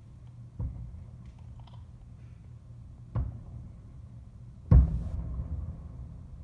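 Distant aerial fireworks shells bursting: three deep booms, each trailing off in a low rumble, the third, about three-quarters of the way in, the loudest.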